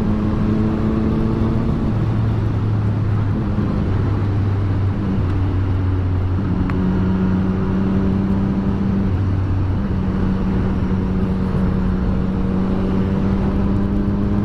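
Triumph Street Triple 765R's inline three-cylinder engine running at a fairly steady note, its pitch shifting slightly now and then.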